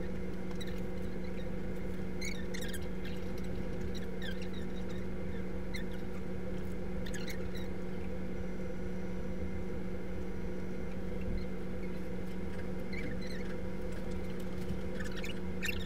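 Steady low hum with a few held tones, broken every second or two by short, high squeaks and clicks.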